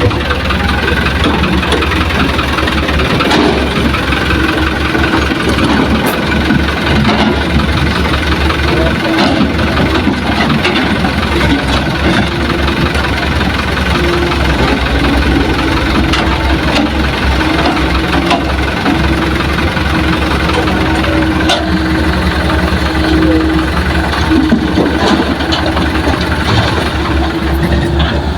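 Heavy diesel engines of Hitachi excavators and a dump truck running steadily while loading soil.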